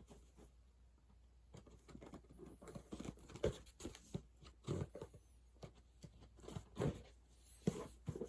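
A package being handled and opened by hand: irregular rustling, tearing and light knocks, starting about two seconds in.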